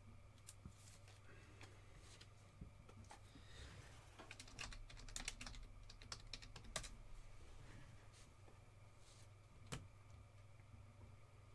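Faint typing on a computer keyboard: scattered keystrokes, thickest in a quick run about halfway through, over a low steady electrical hum.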